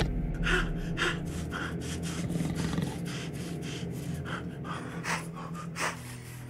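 Quick, short sniffs, about three a second, as the Krampus creature sniffs at a man's face, over a low steady hum.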